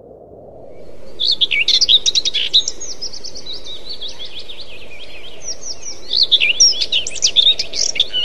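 Small songbirds twittering in quick, high chirps, in two busy bursts, about a second in and again from about six seconds, over a steady low hiss.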